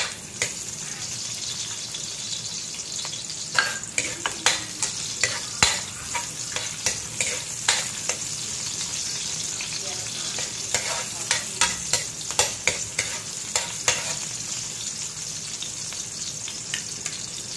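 Chopped garlic and onion sautéing in a metal wok, a steady sizzle, while a metal spatula stirs them, clinking and scraping against the pan at irregular moments.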